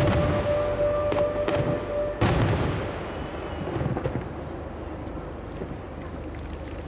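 Aerial fireworks shells bursting: several sharp reports over a held note of music in the first two seconds, then a big burst about two seconds in. The burst is followed by a fading rumble and crackle as the music drops away.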